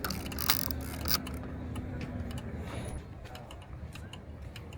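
Mechanical clicking and ratcheting of a Kowa Six medium format film camera as it is handled and its film is wound on, with a few sharp clicks in the first second and lighter ticks after.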